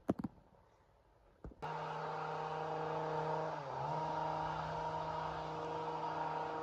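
A few sharp clicks, then a chainsaw engine starts abruptly about a second and a half in and runs steadily, with a brief dip in pitch partway through.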